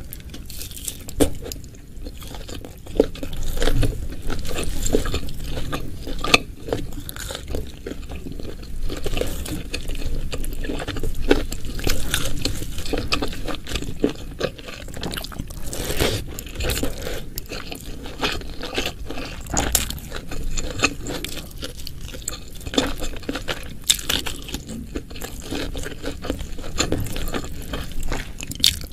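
Close-miked eating sounds: steady, irregular chewing and crunching with wet mouth noises and occasional clinks of cutlery on a plate, as spiced beef, pickles, fried petai and rice are eaten.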